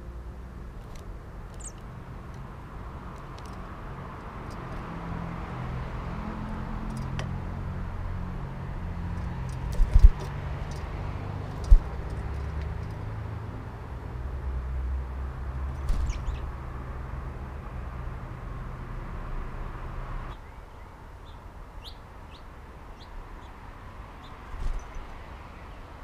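Short, high bird chirps scattered over a low, steady engine rumble. The rumble cuts off suddenly about twenty seconds in. Two sharp knocks come about ten and twelve seconds in and are the loudest sounds.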